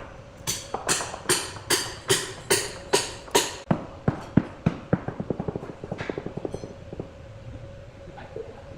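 Hand tool striking in woodworking: about eight sharp blows a little under half a second apart, then a quicker run of lighter taps that dies away about six seconds in.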